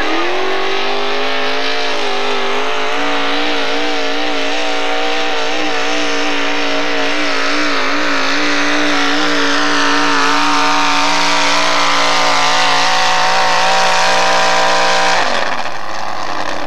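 Modified four-wheel-drive pulling truck's engine at full throttle, pulling a weight-transfer sled. The revs climb over the first two seconds, then hold high with a wavering pitch, and drop away suddenly near the end as the pull ends and the truck comes to a stop.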